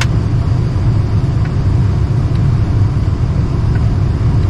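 Lennox package unit's blower running, a steady low rumble, with a short click right at the start.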